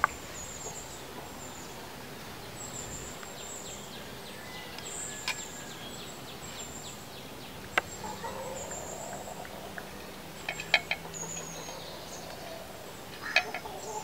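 Outdoor background with birds chirping high and thin here and there, and a few sharp clicks or taps through it.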